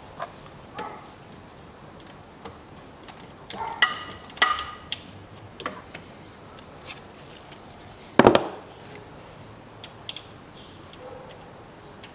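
Metal clicks and clinks of a socket wrench being worked on the 12 mm bolt that holds an automatic transmission dipstick, with a quick cluster of ringing clinks about four seconds in and a single louder knock about eight seconds in.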